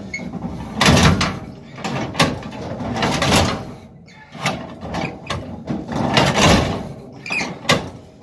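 A 1951 Ford side-valve engine (E493A) being turned over by hand with the starting handle, heard as a series of uneven noisy strokes roughly one a second. The engine does not fire: a cold first start of the year that keeps failing.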